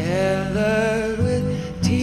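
Background song: long sung notes with vibrato over guitar accompaniment, a new note starting near the end.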